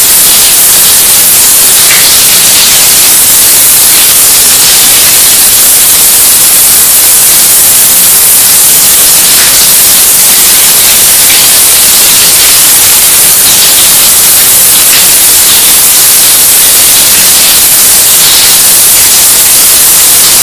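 Shower water spraying, amplified into harsh clipped static. It is a steady, unbroken hiss at full loudness, with no pauses.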